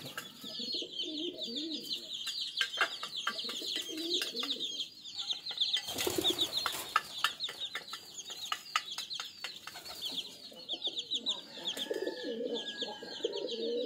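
Pigeons cooing low, over constant high chirping and twittering from the feeding flock. A run of sharp taps comes in the first half, with a short rush of noise about six seconds in.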